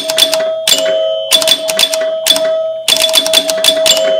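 Electromechanical pinball spinner stepper unit clattering in quick bursts of clicks as its solenoid pulls the ratchet back step by step, driven by the spinner spinning. A bell-like tone rings on steadily underneath the clicks.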